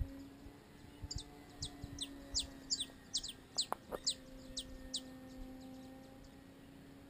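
A bird calling a quick series of high chirps, each sliding down in pitch, about two a second for some four seconds, over a faint steady hum.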